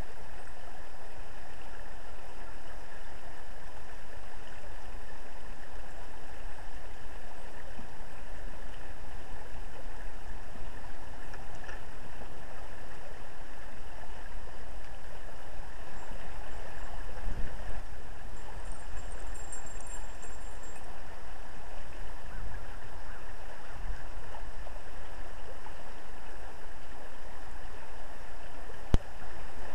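Steady rushing of river water flowing past a waterwheel turning in the current, with one sharp click near the end.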